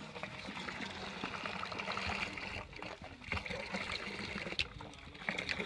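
Pineapple juice pouring in a steady stream from a carton into a plastic bucket of punch, trickling onto the liquid already in it.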